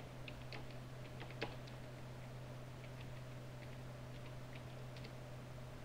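Computer keyboard typing: scattered, irregular soft key clicks over a steady low hum.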